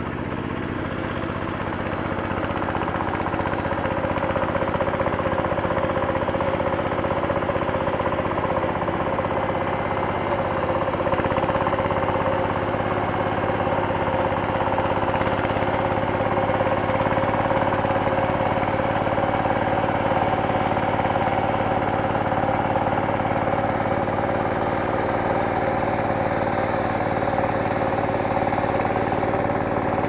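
Two-wheel hand tractor's single-cylinder diesel engine running steadily as it ploughs a flooded rice paddy, growing louder over the first few seconds.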